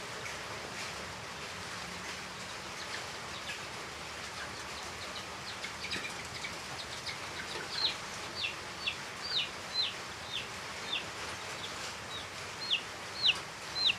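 Chick peeping: a run of short, high, downward-sliding peeps, about two a second, starting faintly about halfway through and growing louder. A steady hiss lies underneath.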